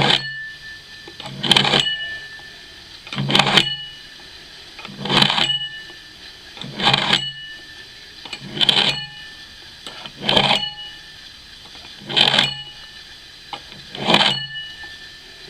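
Old broad axe blade drawn again and again through a Block Sharpener's hardened steel sharpening rods. Each pass makes a short metal-on-metal scrape with a brief ring, nine passes at an even pace of about one every second and three-quarters, as the rods hone the edge.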